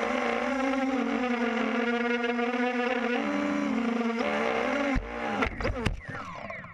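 QAV250 quadcopter's 2000KV brushless motors and propellers whining steadily, the pitch wavering with throttle. About five seconds in it crashes into the grass with a few sharp knocks, and the motors wind down, falling in pitch.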